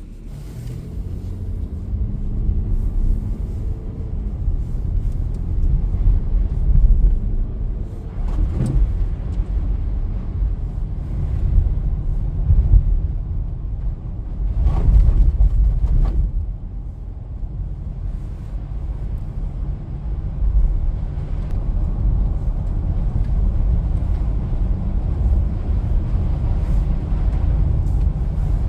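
Car driving: a steady low rumble of engine and road noise, with the engine tone rising in the first few seconds. Brief louder noises come about 9 seconds in and again about 15 seconds in.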